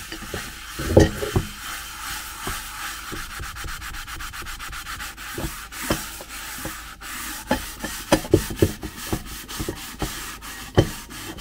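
A scrubbing sponge rubbing back and forth over the bottom of an aluminium Afghan Kazan pressure cooker with Bar Keepers Friend cleanser, a quick run of rasping strokes. This is the work of scouring burnt residue and tarnish out of the pot. There are a couple of louder knocks, one about a second in and one near the end.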